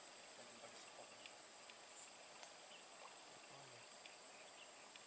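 A steady, high-pitched drone of insects, with a few faint scattered clicks.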